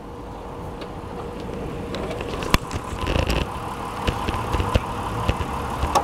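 Clicks and knocks from the bonnet of a Mitsubishi Pajero being handled at its front edge as it is opened, over a steady mechanical hum that grows louder after about two seconds.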